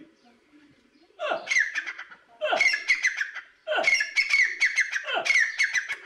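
Grey francolin calling loudly: four phrases in quick succession, each a falling note followed by a rapid run of ringing notes, starting about a second in.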